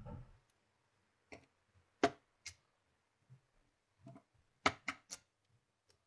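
Sharp clicks and taps of a small screwdriver and screws against the plastic case of a Nintendo Wii while hidden screws are taken out: about seven separate clicks, several close together near the end, after a soft low bump at the start.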